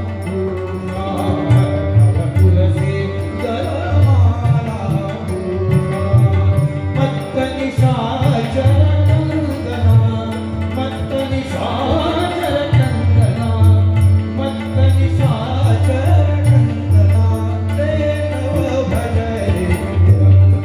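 Marathi natya sangeet: a male singer's long, ornamented gliding phrases, over harmonium and organ drones with tabla strokes keeping the beat.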